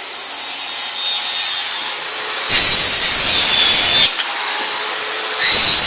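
Circular saw running with its blade set shallow, making repeated closely spaced kerf cuts across a board to dado out a channel. It grows louder twice, about halfway through and again near the end.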